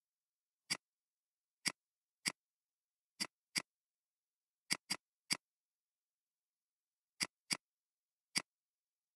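Computer mouse clicks, about eleven short sharp clicks at uneven intervals, some in quick pairs, with silence between them.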